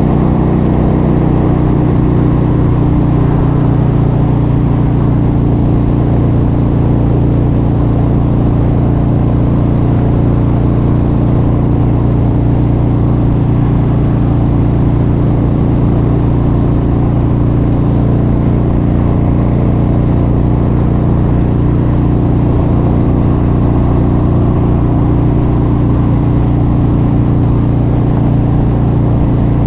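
Motorcycle engine running steadily at an even cruising speed, with the pitch holding constant and a steady rush of wind and road noise over it.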